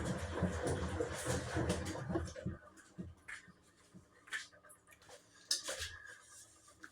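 Washing machine running with a low rumble and knocking, which stops about two seconds in, leaving scattered clicks and a single knock.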